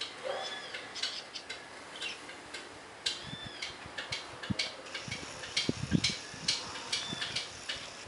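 Birds calling at a garden feeder: a busy run of sharp chips and ticks, with an arching whistled call three times. A few dull low thumps around the sixth second are the loudest sounds.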